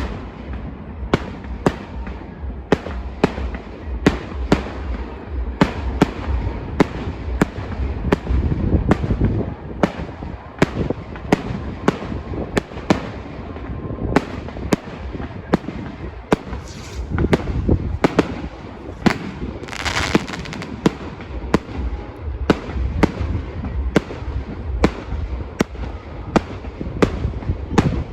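Fireworks display: sharp bangs of bursting shells about twice a second over a continuous low rumble, with a short crackling hiss about twenty seconds in.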